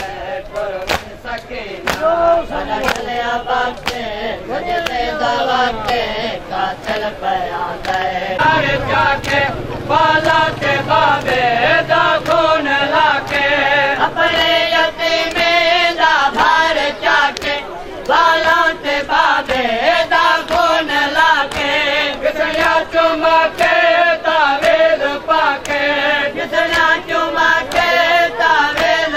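A crowd of men chanting a Shia mourning lament (noha) in unison, with the rhythmic slaps of hands beating on chests (matam). The slaps come about two a second and stand out most in the first several seconds.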